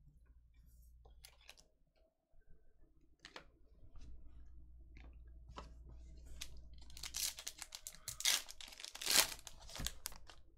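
A trading card pack wrapper being torn open and crinkled by hand: scattered light clicks and rustles at first, then a burst of loud tearing and crinkling over the last few seconds.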